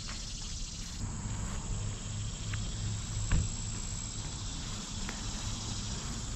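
Steady high-pitched chirring of summer insects such as crickets, with a few light knocks; the loudest comes about halfway through.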